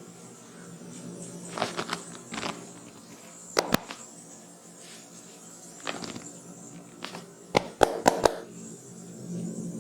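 Sharp cracking clicks from a barber's head massage: a pair a little after three seconds in and a quick run of four loud cracks near the end, with softer ones between. Underneath runs a steady rain ambience with a high insect-like hiss.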